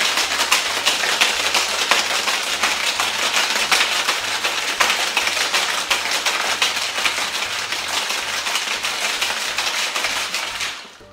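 Ice cubes rattling hard and fast inside a metal cocktail shaker being shaken, chilling a Tom Collins mix of gin, sugar syrup and lemon juice. The rattle stops abruptly near the end.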